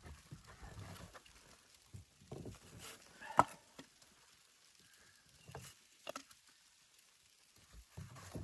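Scattered light knocks and clicks over faint rustling, with one sharp click about three and a half seconds in.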